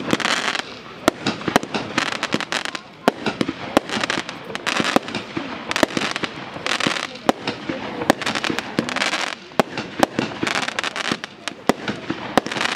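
Weco Polaris 9-shot category 2 firework battery firing: aerial shots burst into crackling stars, a rapid run of many sharp cracks over stretches of hiss.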